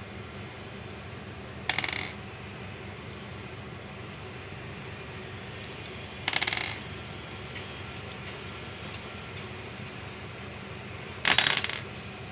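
Three short metallic clinks a few seconds apart, the last the loudest: small steel parts and tools knocking together while the screws are taken out of a solenoid valve's body. A steady low hum runs underneath.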